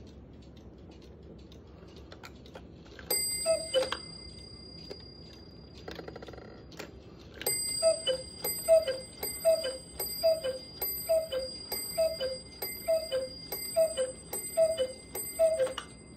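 Hönes eight-day chalet cuckoo clock striking: a single two-note cuckoo call with bell strokes about three seconds in. About halfway through a run of about a dozen cuckoo calls begins, roughly one every 0.7 seconds, each with a stroke of the small bell worked by the bell-lady figure, over a steady ringing.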